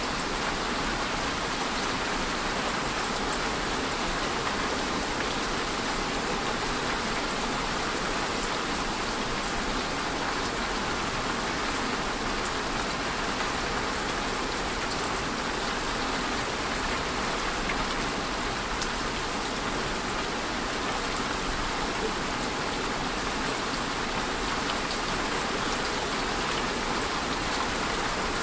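Steady rain falling: an even hiss with occasional faint drop ticks.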